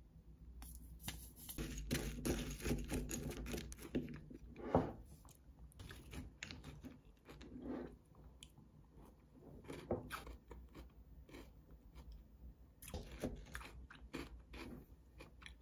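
Crunchy chocolate cereal balls with yogurt being chewed, with a wooden spoon scraping and tapping a ceramic bowl: irregular small crackles and clicks, busiest in the first few seconds and again near the end.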